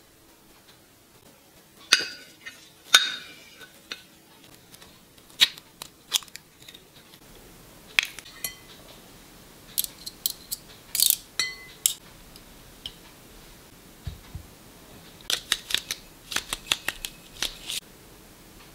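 Sharp clinks and taps of a wire egg separator, a spoon and a spatula against glass mixing bowls, some ringing briefly. They come in short clusters with quiet gaps between.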